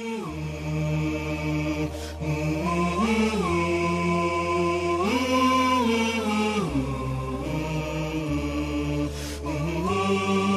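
Closing-theme music: a slow vocal chant in the style of an Islamic nasheed, with long held notes that step up and down in pitch over a low steady drone.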